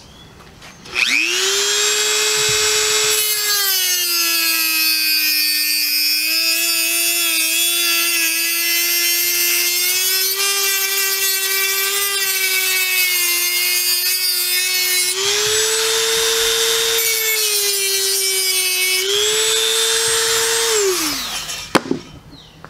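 Dremel rotary tool with a cut-off wheel spinning up about a second in, then cutting into a soft brass faucet trim sleeve. Its high whine sags in pitch while the wheel bites, under a grinding hiss, and rises when the cut is eased. It winds down near the end.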